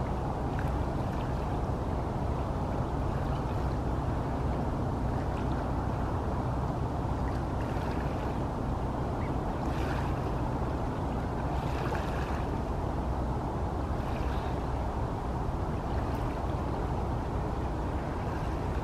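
Steady low rumble under an even wash of outdoor background noise, with a few faint short sounds about every two seconds.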